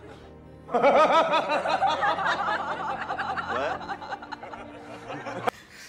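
A man laughing in a quick run of pitched chuckles, starting about a second in and trailing off after a few seconds, from a film soundtrack.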